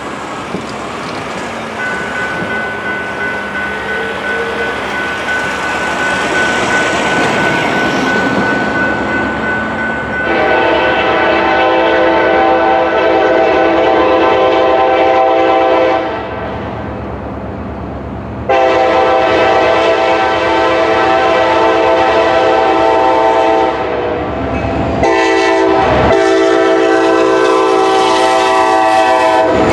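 Approaching Kansas City Southern freight locomotive's air horn blowing its grade-crossing warning: three long chord blasts of about five seconds each, the first about ten seconds in, getting louder as the train nears. Before the horn, a crossing signal bell rings steadily.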